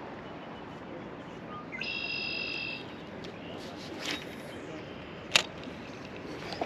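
A bird gives a single buzzy, high call lasting about a second, over a steady hiss of moving river water. A sharp click comes about five seconds in, with a fainter one shortly before.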